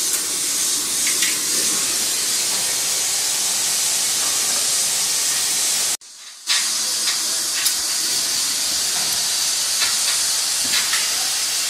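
A steady, loud hiss with a few faint clicks. It drops out for about half a second near the middle.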